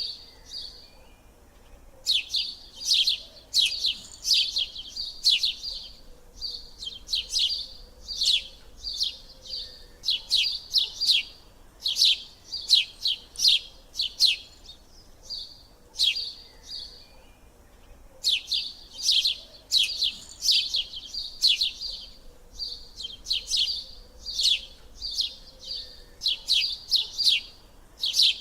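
Small bird chirping in quick runs of short, high chirps, several a second, with pauses of a second or two between runs.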